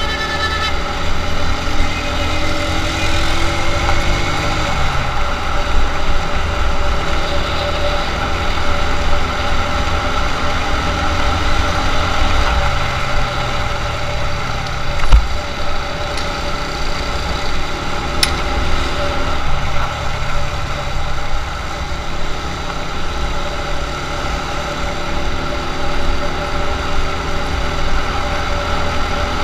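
Small motorcycle engine running while being ridden. Its pitch climbs and then drops back several times as it accelerates and shifts gear, over a heavy low rumble from wind and road. A single sharp knock comes about halfway through.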